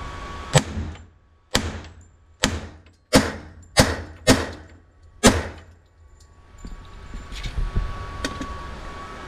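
Seven shots from a Detonics Scoremaster .45 ACP 1911 pistol, fired at uneven intervals of about half a second to a second, each echoing briefly off an indoor range. A few faint clicks follow near the end.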